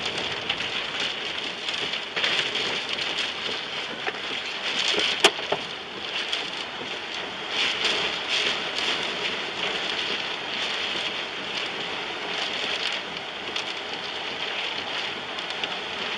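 Heavy rain and wind beating on a car, heard from inside the vehicle as a steady hiss, with one sharp knock about five seconds in.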